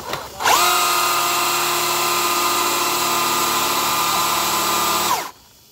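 Traxxas Unlimited Desert Racer RC truck doing a burnout: its brushless motor spins up almost at once to a steady high whine over the hiss of tyres spinning on concrete. It holds for about five seconds, then winds down quickly.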